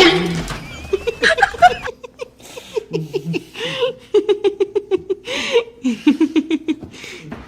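A person laughing hard, with fast runs of short 'ha-ha' bursts broken by wheezing in-breaths.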